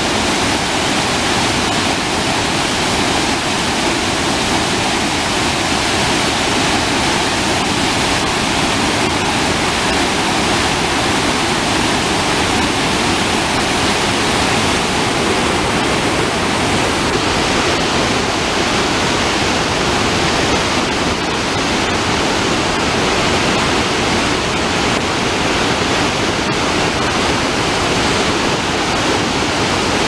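Mekong River falls and rapids, white water pouring over rock ledges: a steady, loud rushing of water.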